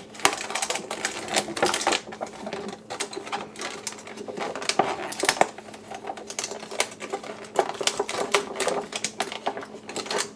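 Clear plastic blister tray crinkling and clicking as small plastic accessory swords are worked out of it, with many scattered sharp clicks.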